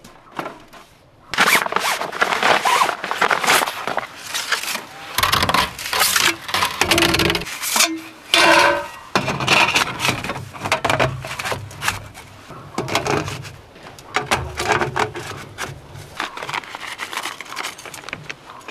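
Metal stovepipe sections of a small wood stove scraping and clattering against each other and the stove as they are handled and fitted together, in a dense run of scrapes and knocks with a few brief metallic rings.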